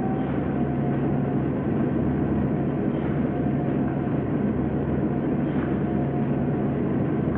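Film soundtrack drone: a steady, low industrial rumble with a deep hum beneath it, unbroken throughout.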